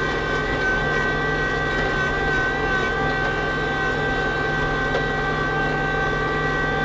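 Kubota LX2610 compact tractor's three-cylinder diesel engine running steadily under load as it climbs in four-wheel drive on tire chains, with a steady high whine over it.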